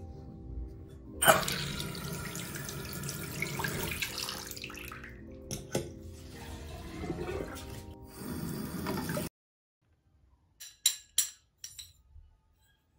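Water running from a waterfall bathroom faucet into a sink basin, starting suddenly about a second in, with background music under it. After a sudden cut, a few sharp plastic clicks near the end.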